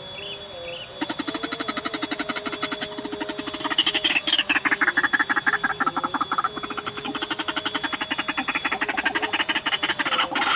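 White-breasted waterhen calling: a rapid, harsh croaking chatter of fast-repeated pulses starting about a second in, with a call sweeping down in pitch around the middle.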